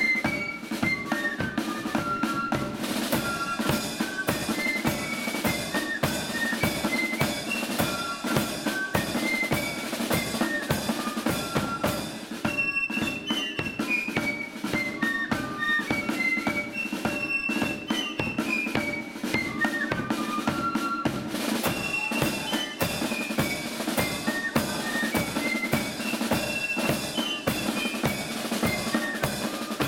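Marching flute band playing a tune: many flutes carrying the melody over snare drums and a bass drum keeping a steady march beat.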